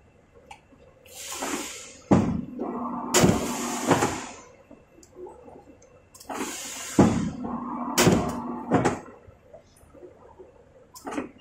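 115 cm hydraulic paper guillotine making automatic cuts through a paper stack, twice. Each cut is a rising hiss, then a steady hydraulic hum and sharp, loud thuds as the blade comes down.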